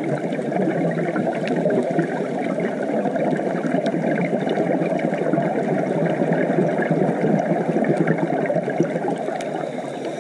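Underwater reef ambience heard through a GoPro's waterproof housing: a steady, muffled rushing noise with a few faint sharp clicks.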